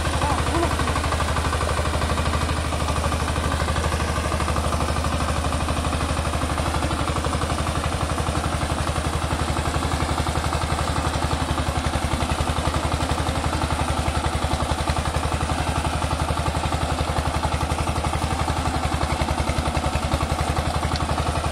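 Kumar-13 mini tractor's engine running steadily under load with a fast, even beat, as its rear-mounted rotavator tills wet, puddled paddy soil.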